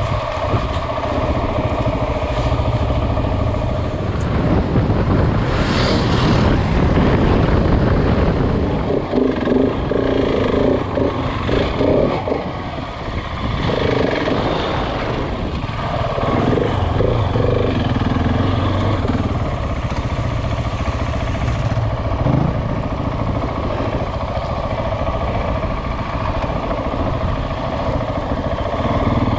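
KTM 690 Enduro's single-cylinder engine running while the bike is ridden, its revs rising and falling with the throttle.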